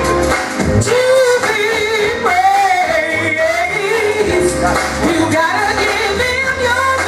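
Music with singing: a held, wavering vocal line over a steady bass.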